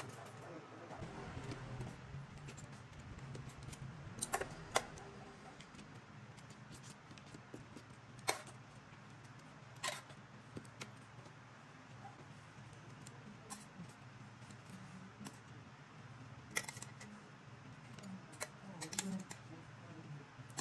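Metal kitchen tongs clicking and tapping every few seconds as grilled meat and vegetables are set down on banana leaves, over a low steady hum.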